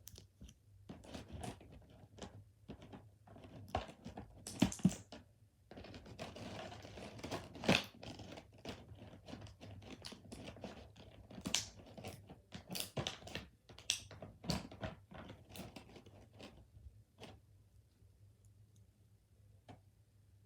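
Plastic packaging and tape crinkling and tearing as a toy figure is unwrapped, with scattered sharp clicks and taps of plastic parts being handled. It stops about three-quarters of the way through.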